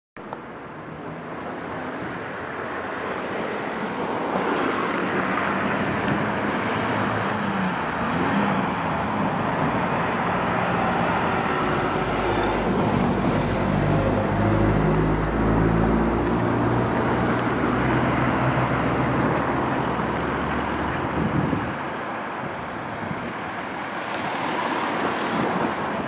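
Road traffic noise, with a motor vehicle's engine running louder for several seconds in the middle, its pitch shifting in steps.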